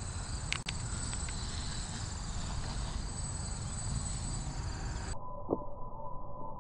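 Home-built quadcopter's brushless motors whining steadily as it lifts off and hovers low, over low wind noise on the microphone. About five seconds in the sound cuts abruptly to a thin, muffled recording with a steady high tone.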